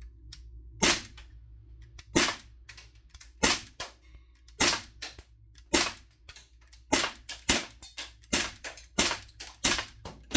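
CO2-powered airsoft BB gun firing about ten single shots, roughly one a second and quickening near the end, with fainter ticks between the shots as BBs hit the targets and the wall.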